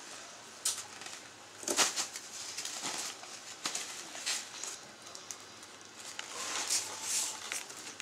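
Styrofoam packing peanuts rustling and squeaking as a baby grabs and stirs them in a cardboard box, in irregular short scrunches, loudest about two seconds in.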